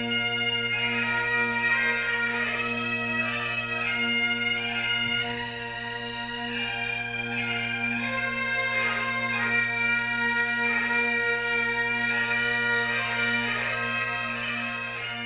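Bagpipe music: steady low drones held under a shifting chanter melody.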